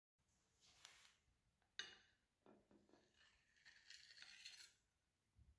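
Faint clatter of a metal cake server on a ceramic plate: a sharp clink about two seconds in, then a scrape lasting about a second as the slice of cake is set down.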